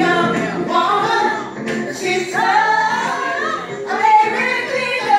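Music with singing voices, mostly female, loud and unbroken.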